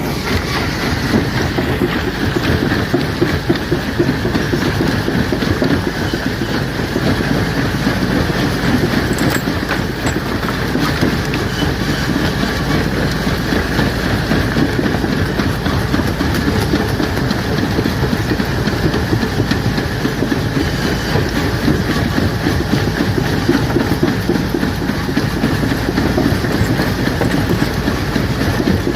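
Rock crusher running and crushing stone: a loud, steady, dense clatter of many rapid knocks and grinding rattle as rock is broken up.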